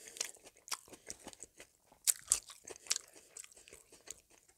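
Close-miked chewing of a mouthful of chicken Caesar salad: irregular crunching clicks, the loudest pair about two seconds in.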